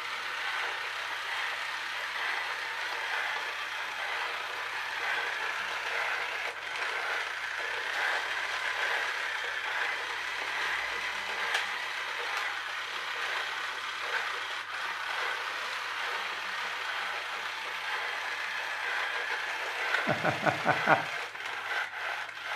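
Battery-powered toy train's small electric motor and clear plastic gears running with a steady whirring clatter, the split drive gear slipping out of mesh while momentum carries it over the break. Near the end comes a short, louder run of rapid pulses.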